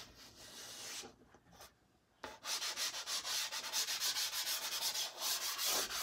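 Soft pastel stick scratching across textured pastel paper in rapid back-and-forth strokes. The strokes fade and stop for about a second, then start again after a sharp tap a little over two seconds in.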